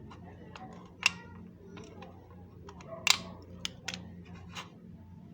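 Scattered small clicks and taps, with two louder sharp ones about a second in and about three seconds in, over a faint steady low hum.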